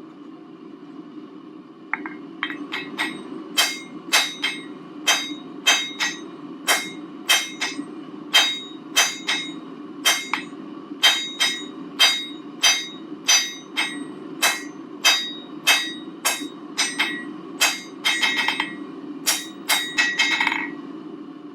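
Blacksmith's hammer striking hot round stock on an anvil, about two blows a second starting about two seconds in, each blow ringing from the anvil, which has no chain on it to damp it yet. A steady low hum runs underneath, and near the end the blows come quicker and run together.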